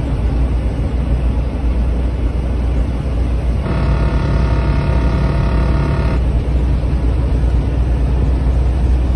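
Road and engine noise inside a moving vehicle's cab: a steady low rumble. A little under four seconds in, a steady buzzing tone with several overtones joins it and stops about two and a half seconds later.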